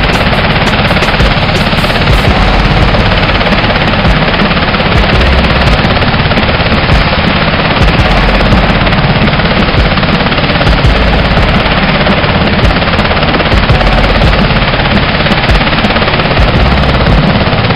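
UH-60 Black Hawk helicopter hovering close by: loud, steady rotor noise, with rotor downwash wind buffeting the microphone.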